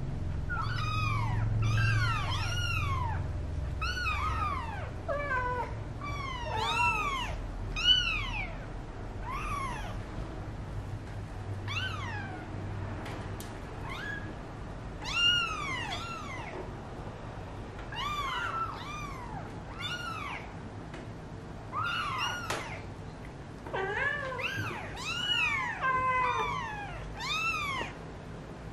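A litter of 18-day-old kittens mewing: many short, high mews, each rising then falling in pitch. They come in clusters and sometimes overlap, with a sparser stretch near the middle.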